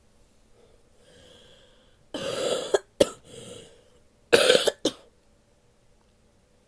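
A sick woman coughing: a faint breath in, then two loud bouts of coughing about two seconds apart, with a breath drawn between them.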